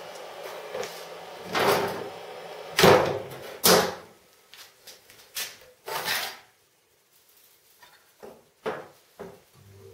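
Aluminium sheet-metal cover of a homemade welder's case being lifted off and set down on a workbench: a run of metallic knocks and clatters, the loudest about three and four seconds in, then a few lighter taps.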